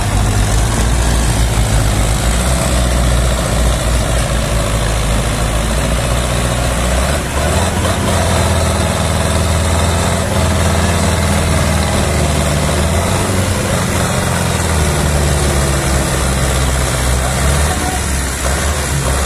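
Tractor diesel engine running hard under heavy load, straining against an overloaded sugarcane trolley that it cannot pull up a ramp; the engine note shifts about seven seconds in and again near the end.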